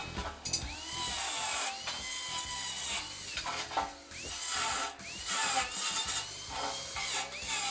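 A power tool running in spurts, its pitch rising and falling about once a second.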